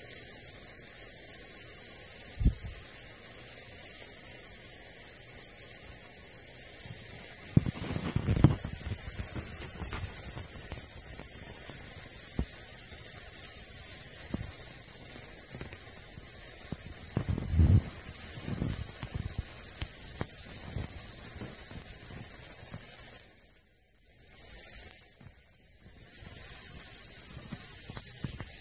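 Red-hot metal ball sizzling as it sinks into a block of mozzarella cheese, a steady high hiss. A few dull bumps break it, about two, eight and seventeen seconds in.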